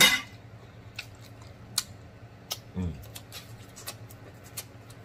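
Close-miked chewing: scattered sharp wet mouth clicks and smacks, with a short low hum about three seconds in and a bite into corn on the cob near the end.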